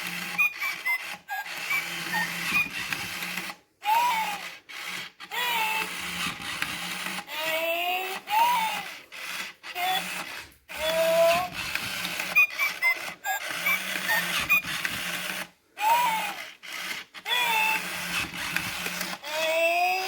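Furby toys chattering in short electronic voice phrases with swooping pitch, their internal motors whirring in bursts as they move, stopping and starting many times with brief pauses between.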